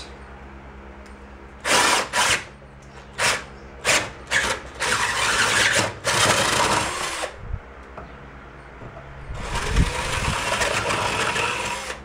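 Cordless drill boring through a metal bar clamped in a vise, with its largest bit: several short bursts on the trigger, then two longer runs of steady drilling.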